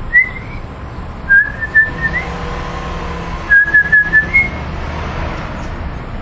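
Pet Eurasian magpie giving whistled notes: a short rising whistle, then two runs of four or five quick clipped notes about two seconds apart, and a last short higher note.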